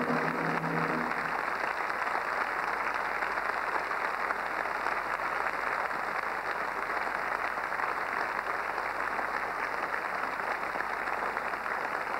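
Audience applauding steadily, with a stretch of music that stops about a second in.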